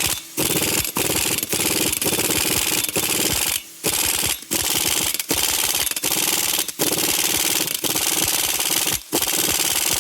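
Air impact wrench hammering on a seized, over-torqued lug nut in repeated bursts with brief pauses between them; the nut is not breaking loose.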